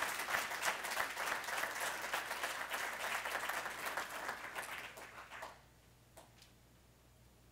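Audience applauding, dying away and stopping about five and a half seconds in. Then quiet room tone with one faint click.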